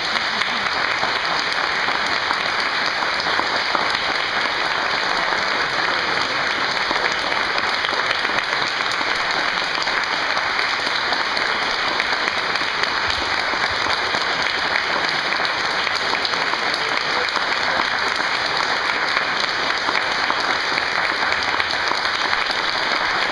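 Audience applauding: long, dense, even clapping at the end of a talk.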